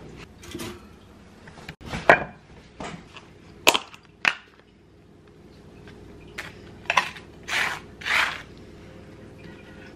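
Kitchen handling sounds: a few sharp clicks and knocks as a plastic tub of spread is opened and things are set on a wooden cutting board, then a knife scraping spread across toast twice near the end.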